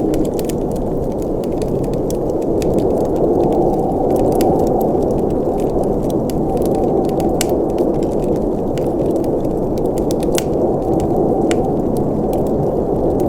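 Wood fire burning in a fireplace: a steady low rush of flames with frequent sharp crackles and pops from the burning wood.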